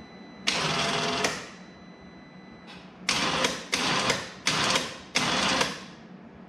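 Electric winch motor running in short bursts as it is jogged on and off by its switch, winding the line: one burst of just under a second, then four short bursts in quick succession, each starting with a click and dying away as the motor coasts down. This is the newly wired winch being tested, and it is working.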